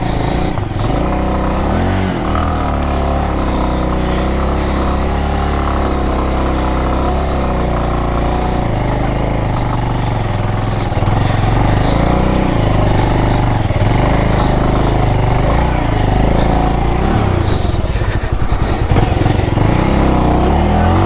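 Motorcycle engine revving up and down under load, climbing a slippery off-road dirt slope, getting louder about halfway through.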